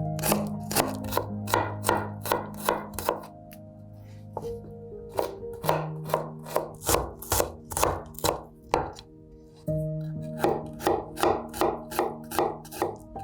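Kitchen knife chopping on a cutting board: quick, even strokes about three a second in three runs, with short pauses between them. Soft background music underneath.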